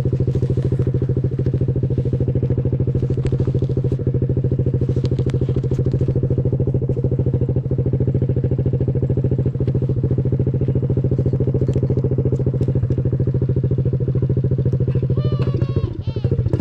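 Motorcycle engine running steadily at low, even revs, pulling a child's sled slowly across snow.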